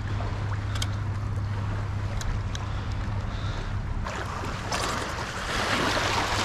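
Wind rumbling on the microphone over small waves lapping and washing against the sandy shoreline, the wash of the waves growing louder from about four seconds in.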